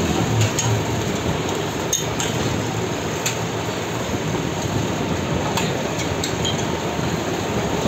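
Scattered sharp metal clinks of steel spatulas and utensils against a large steel frying tawa and plates, over a steady noisy background.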